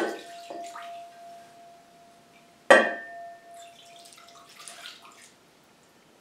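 A glazed pitcher knocks twice against a ceramic bowl, about two and a half seconds apart with the second knock louder, and the bowl rings on with a clear tone after each knock. Water pours and splashes into the bowl.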